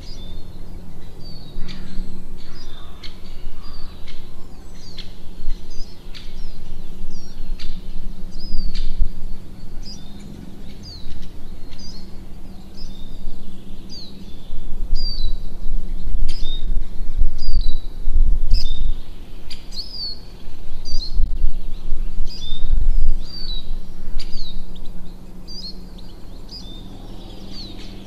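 Small birds chirping, short high falling chirps about once a second, over a steady low hum. Scattered sharp clicks and low thuds come from hand work with tools at the pipe, heaviest in the middle of the stretch.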